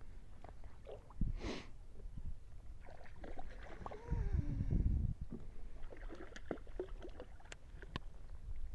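A hooked bass splashing at the water's surface beside a fishing kayak as it is brought in and netted, with scattered knocks and clicks of gear against the hull and a louder bump about four seconds in.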